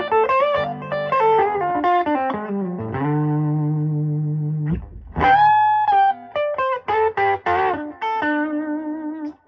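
Telecaster played through a 1960s Elk Custom 30 valve amplifier (EL84 power stage, Fender-style preamp) on the bridge pickup with the amp volume at about 75%, lightly overdriven. It plays single-note lead lines with string bends and vibrato and a chord held for a couple of seconds, and stops just before the end.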